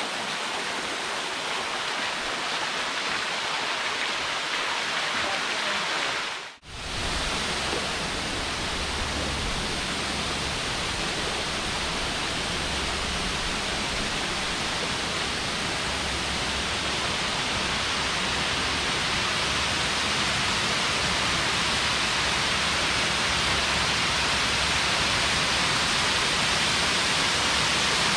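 Steady rush of a waterfall cascading over rock ledges, growing slightly louder near the end as the kayak closes in. The sound drops out briefly about six and a half seconds in.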